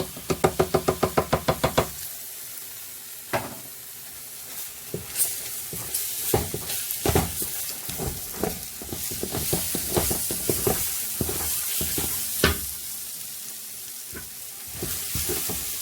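Tomatoes sizzling as they fry in a hot soup pot, with a spoon knocking and scraping against the pot as they are stirred. A quick run of about a dozen rapid, evenly spaced pulses comes in the first two seconds.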